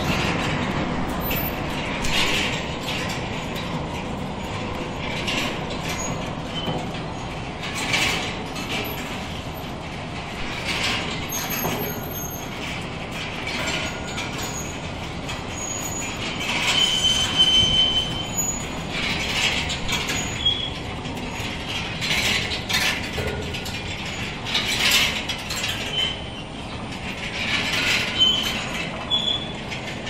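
Overhead chain conveyor of a hanging chicken-and-duck frying line running: a steady mechanical rattle with irregular clanks from the chain and hooks and a few brief squeals.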